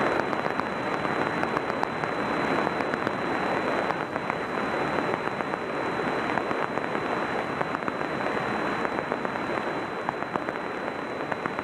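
Light aircraft engine at low taxi power, heard inside the cockpit as a steady, crackly rush, with a faint high steady whine over it.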